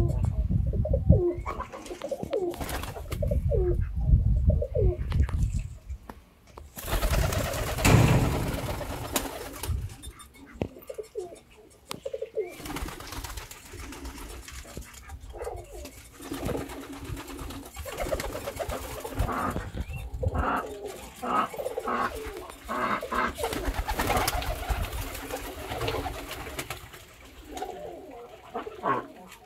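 Transylvanian double-crested tumbler pigeons cooing: repeated short, low gliding calls from several birds. A loud rushing noise comes about eight seconds in.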